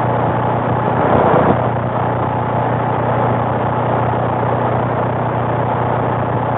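AM CB radio on channel 19 receiving an open carrier with no one talking: steady hiss and static, with a steady low hum underneath, heard through the radio's speaker.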